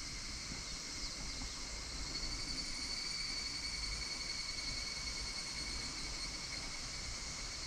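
Higurashi (evening cicada) calling: a high ringing call that swells about two seconds in and fades out a few seconds later, over a steady high insect hiss.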